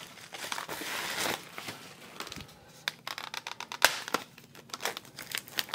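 Bubble wrap and plastic shrink wrap crinkling and rustling as hands unwrap a part. A dense rustle for the first second or so, then scattered crackles and clicks, one sharp click a little past the middle.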